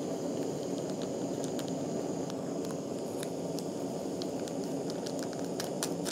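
Snow Peak GigaPower isobutane canister stove burning steadily under a pot of water that is coming to the boil, with scattered faint ticks and pops over the steady burner noise.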